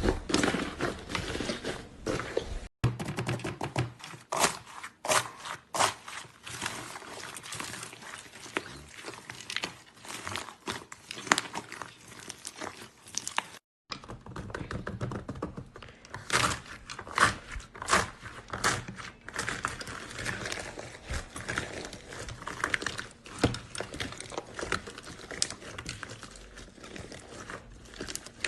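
Crunchy iceberg slime being pressed and squeezed, crackling with many sharp crunches and pops. The sound breaks off briefly about 3 s and 14 s in as one clip gives way to the next.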